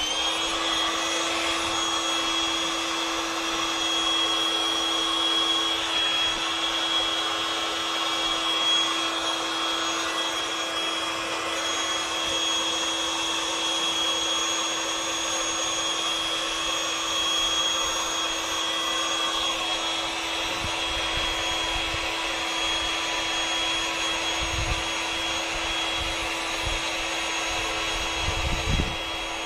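Intex Quick Fill electric air pump switching on, spinning up and then running steadily with a constant whine as it blows air into an inflatable boat chamber. A few low thuds are heard near the end.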